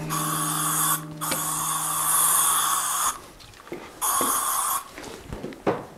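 Aerosol furniture polish sprayed onto a bicycle frame: three bursts of hiss, the middle one about two seconds long.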